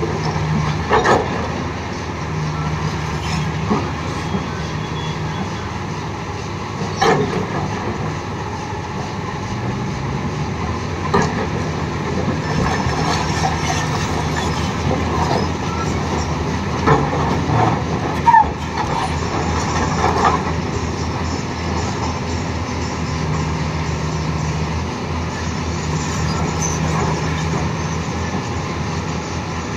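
Volvo EC480 crawler excavator's diesel engine and hydraulics running steadily under load, with a low steady drone that comes and goes. Several sharp knocks and clanks of the bucket against rock break through it, most of them in the middle stretch.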